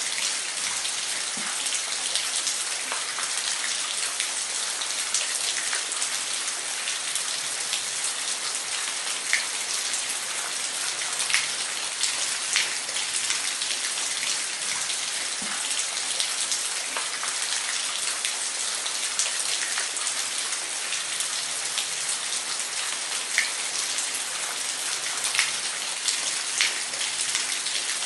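Waterfall: falling water making a steady, dense hiss, with many small splashes scattered over it.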